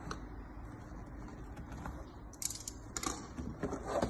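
Light clicks, taps and rustles of a tablet's cardboard retail box being handled and opened.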